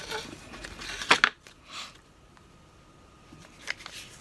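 Paper leaflets and a cardboard box insert being handled and unfolded: paper rustling, with two sharp clicks about a second in and a lighter click near the end.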